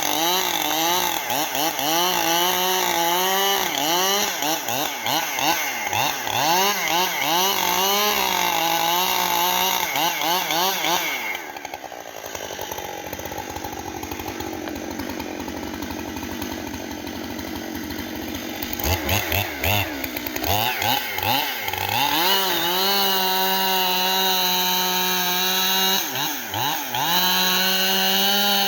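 Gasoline chainsaw cutting into a tree trunk, its engine pitch dipping and recovering again and again as the chain bogs under load. About eleven seconds in it drops back to a quieter idle for several seconds, then revs up again and carries on cutting at high speed.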